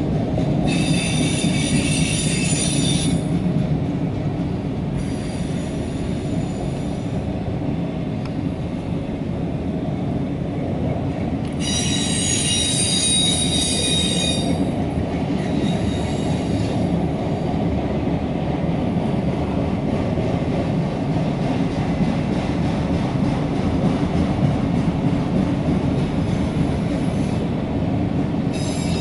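Empty autorack freight cars rolling past with a steady low rumble of wheels on rail. High wheel squeal rises over the rumble twice, about a second in and again around twelve seconds, and briefly once more near the end.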